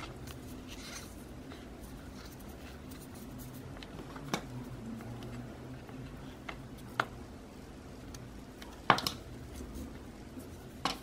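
Scissors snipping open a stress ball's skin, with about four sharp clicks of the blades, the loudest about nine seconds in, among soft handling and rubbing of the ball over a low steady hum.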